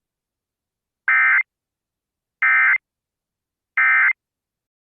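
Emergency Alert System end-of-message signal: three short, identical bursts of warbling digital data tones about a second and a half apart. They mark the end of the broadcast severe thunderstorm warning.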